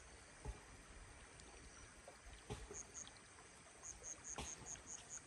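Quiet outdoor ambience with a few soft thuds. In the second half a run of short high-pitched chirps repeats about five times a second.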